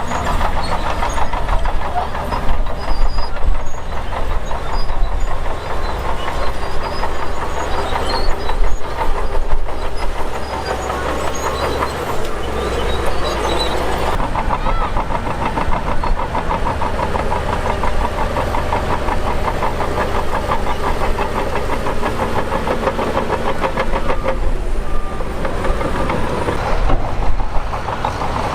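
Shantui DH17 bulldozer working: its diesel engine running steadily under load with the clatter of its steel tracks, the level swelling and easing a little as it pushes.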